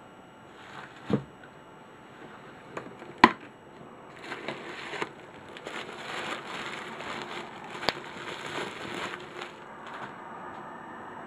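Bubble wrap crinkling and crackling as a wrapped camera lens is lifted out of a cardboard box and unwrapped. A few sharp knocks from handling come through, the loudest about three seconds in.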